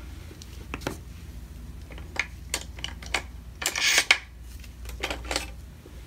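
Metal-handled acrylic nail brushes clicking and clinking as they are picked up and sorted, with a short rustling burst about four seconds in.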